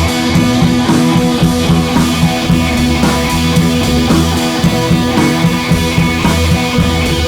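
Background music with electric guitar and a steady drum beat, in a rock style.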